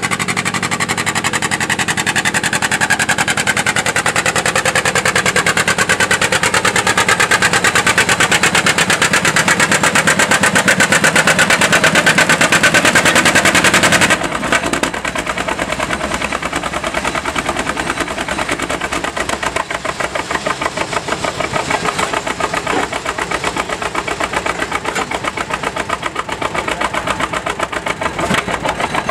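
Two-cylinder John Deere tractor engine pulling the weight sled under load: a fast, even firing beat whose pitch sinks and then climbs again. About fourteen seconds in it cuts abruptly to a John Deere two-cylinder engine running slowly close by, with a steady popping beat.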